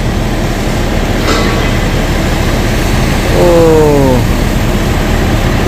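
Steady noise of rain and street traffic, with a short call falling in pitch about three and a half seconds in.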